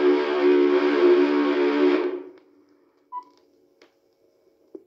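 A held closing chord of music that fades out about two seconds in, followed by a faint steady hum and a few soft clicks.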